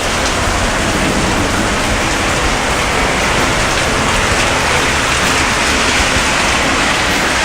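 Torrential monsoon rain pouring down in a steady, dense hiss.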